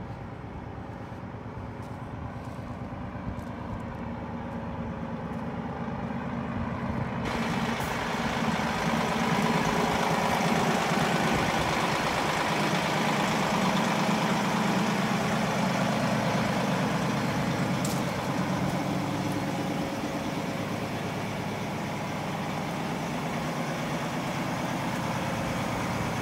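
Caterpillar 349F L excavator's C13 diesel engine running steadily, growing louder and fuller about a third of the way in.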